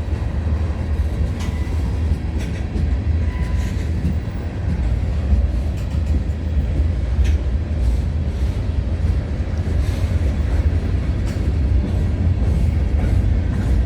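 CN freight train rolling past, a steady heavy rumble of railcars on the track with scattered wheel clicks.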